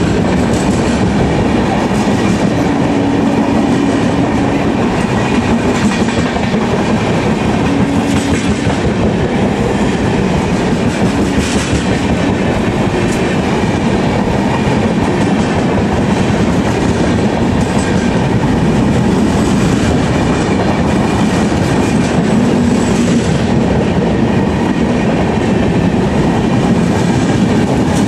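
LHB passenger coaches of an express train running through a station at speed close by: a loud, steady rumble of wheels on rail with a continuous clickety-clack.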